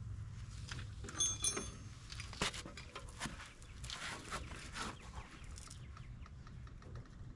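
Floor jack being pumped to lift the front suspension: a series of clicks and knocks, with squeaks about a second in, over a steady low hum.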